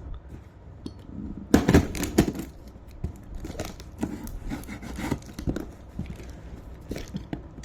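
A parcel being torn open by hand, its packaging ripped and crinkled in a run of irregular rips, crackles and scrapes, loudest about a second and a half in.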